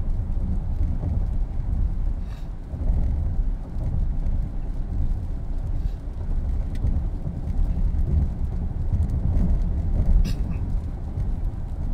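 Steady low rumble of a car's tyres on rain-soaked highway pavement and its engine at cruising speed, heard inside the cabin, with the windshield wipers sweeping every few seconds.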